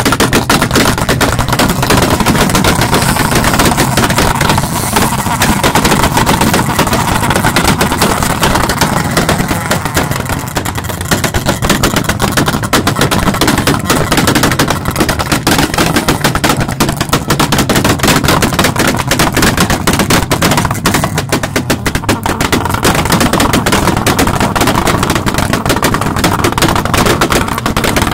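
Tuned car engine revved hard with its exhaust firing a rapid, continuous string of loud pops and bangs.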